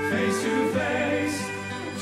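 Background music: a choir singing a Christian hymn over instrumental accompaniment, in sustained chords.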